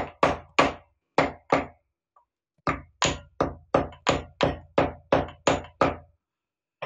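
Dried ginger (sukku) being pounded in a stone mortar with a pestle: sharp knocks at about three a second, a pause of about a second partway through, then a second run of strikes. The ginger is being lightly crushed so it will grind quickly in a mixer.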